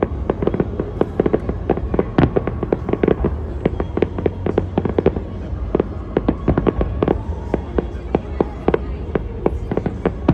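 Aerial fireworks display: a rapid, continuous barrage of shell bursts and crackling, several bangs a second, with a steady low rumble underneath.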